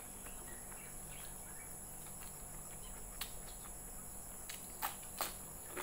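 Close-up eating sounds: quiet chewing, with a few sharp, crisp crunches near the end as a fresh cucumber slice is bitten, over a constant faint high hiss.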